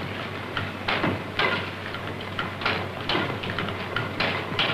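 Diesel's 1893 experimental engine being turned over by a drive belt rather than running under its own power: irregular mechanical knocks and clatter over a steady low hum.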